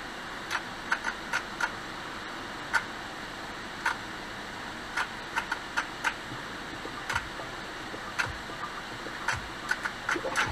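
Automatic car wash heard from inside the car: a steady hiss of water and foam washing over the windshield, broken by irregular sharp ticks.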